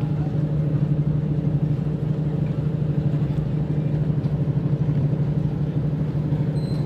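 An engine running steadily: a deep, even hum that does not rise or fall.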